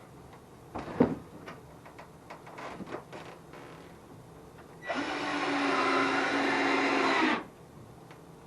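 Power drill driving a screw into wood, running steadily for about two and a half seconds from about five seconds in, then stopping abruptly. A few light knocks and clicks come before it.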